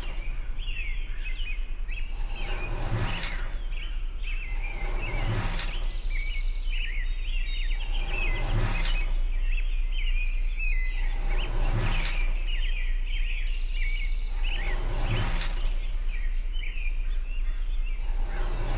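Background ambience of small birds chirping continuously over a steady low hum. A soft whooshing swell with a low thump comes back about every three seconds.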